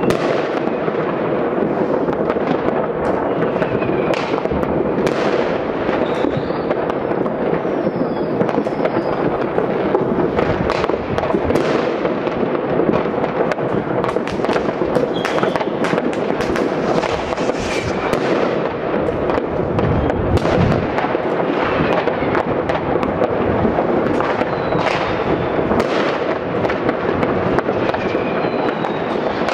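Citywide New Year's Eve fireworks: an unbroken crackle and banging of many firecrackers and rockets, most of them far off and blending into one dense din. Short rocket whistles rise out of it now and then.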